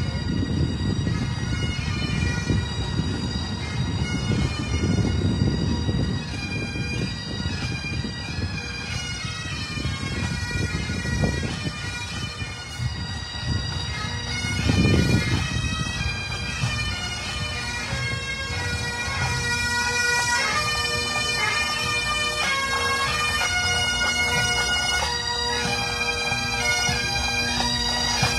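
Bagpipes of a marching pipe band playing, a steady drone under the chanter's melody, growing clearer in the second half. A low rumble sits under the pipes in the first half.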